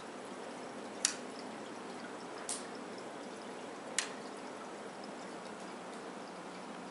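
Steady trickle of water from an AquaClear aquarium filter, with a faint hum. Three sharp clicks about a second and a half apart, the middle one softer, as the tank's LED light is switched from white to blue.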